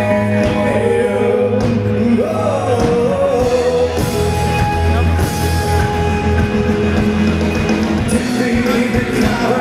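A rock song with a singer's voice over a steady band backing.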